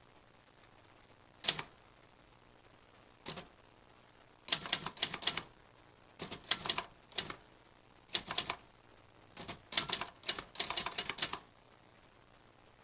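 Typewriter keys being struck: two single keystrokes, then four bursts of rapid typing, each lasting about half a second to two seconds, with short pauses between them. A faint high ring hangs after some strokes.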